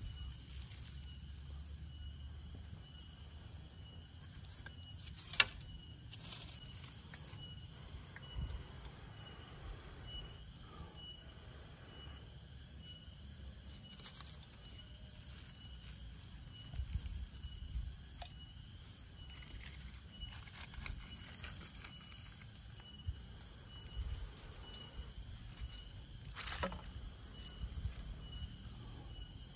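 A steady chorus of forest insects, with one high call that pulses regularly, over soft rustling and crackling of dry grass and split bamboo being handled. One sharp click comes about five seconds in.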